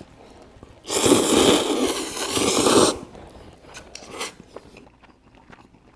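A person slurping ramen noodles, one loud, noisy slurp lasting about two seconds, then a brief softer sound about a second later.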